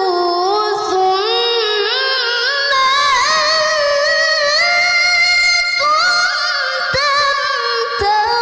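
A woman reciting the Qur'an in melodic tilawah style: one long, ornamented phrase of held, wavering notes. The pitch climbs higher as the phrase goes on, with short breaks near the end.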